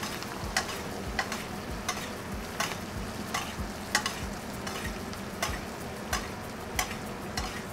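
Chicken frying in melted butter with garlic and herbs, a steady sizzle, while a metal spoon bastes it and clinks against the skillet about every two thirds of a second. This is butter-basting.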